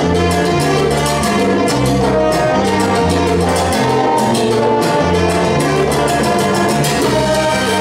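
Big band playing salsa: brass section with trumpets and trombones over a moving bass line and steady Latin percussion.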